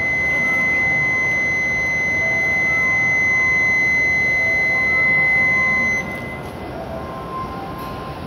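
Door-closing warning buzzer on a Shinkansen platform: one steady, high-pitched unbroken tone that cuts off suddenly about six seconds in, signalling that the train doors and platform screen gates are closing before departure.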